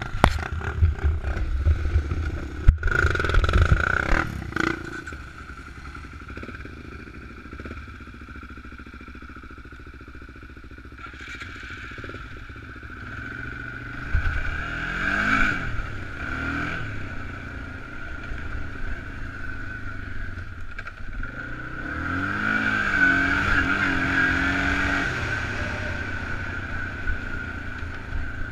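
Single-cylinder four-stroke ATV engine running along a dirt trail, its revs rising and falling twice, about halfway through and again near the end. It opens with knocks and rubbing from the camera being handled.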